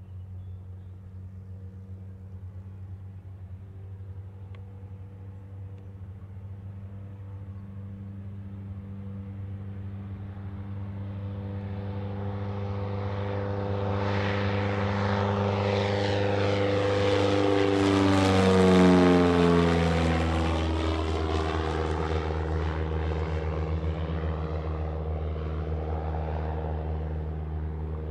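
A Mooney M20J-converted single-engine propeller airplane taking off and climbing out past the listener. Its engine and propeller grow steadily louder to a peak about two-thirds of the way through, drop in pitch as the plane passes, then fade as it flies away.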